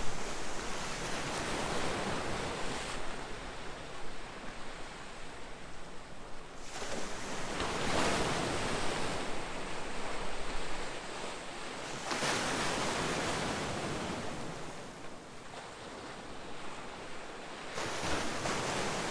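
Ocean waves breaking and washing up a shore in slow surges, each swell building and fading over several seconds, with a little wind.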